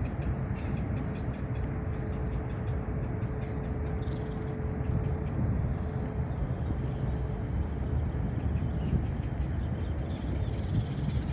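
Steady low outdoor rumble, such as wind on the microphone or distant traffic. A faint steady hum fades after about eight seconds, and a few short high bird chirps come near the end.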